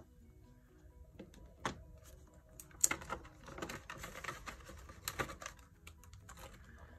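Paper banknotes and a clear plastic binder pocket being handled, with rustling and crinkling and small clicks. It is busiest in the middle few seconds, as a bill is slipped into a cash envelope and a ring-binder page is turned.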